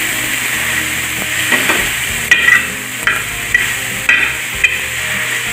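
Chopped vegetables and tomatoes sizzling in butter on a hot flat tawa griddle while a potato masher presses them down to soften the tomatoes. In the second half the masher's metal head knocks and scrapes against the griddle about six times.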